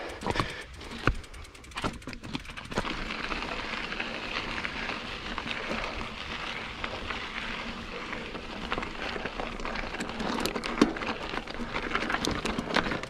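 Mountain bike rolling along a rocky desert dirt trail: steady tyre noise over the loose surface with many small clicks and rattles from the bike. Only a few scattered clicks and knocks in the first couple of seconds before the rolling noise sets in.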